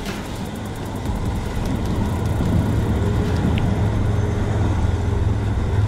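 Road traffic crossing the bridge overhead: a steady low rumble that grows gradually louder.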